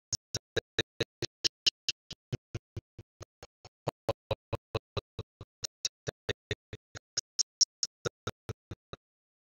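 Rapid, evenly spaced clicks, about five a second, with dead silence between them, cutting off abruptly near the end: a stuttering digital audio glitch in the soundtrack.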